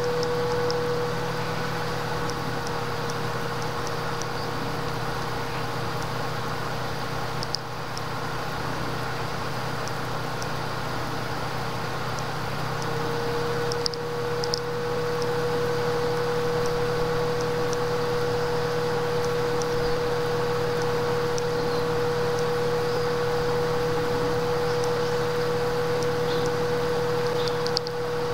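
Steady electrical hum with a constant mid-pitched whine over low buzzing tones, and a few faint clicks.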